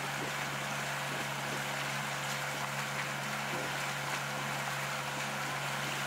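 A boat's motor running steadily under way, a low even hum over a hiss of rushing water and wind.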